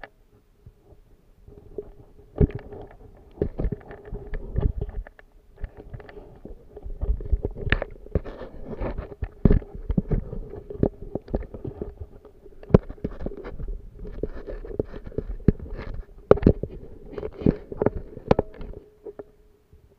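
Muffled sound picked up by a submerged camera: many irregular knocks and clicks over a low rumble and a faint steady hum, dying away near the end.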